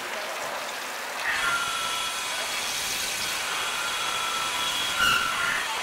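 Drilling spindle of a special-purpose machine cutting a 6 mm hole with chamfer in a valve lifter. A steady high cutting whine with hiss starts about a second in and stops just before the end, over the splashing of flood coolant. A knock comes about five seconds in.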